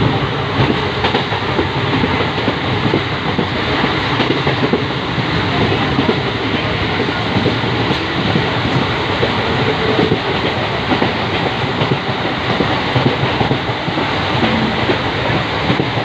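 Train running at speed, heard from on board: a steady rumble and rush of wheels on rails with light clatter over the rail joints.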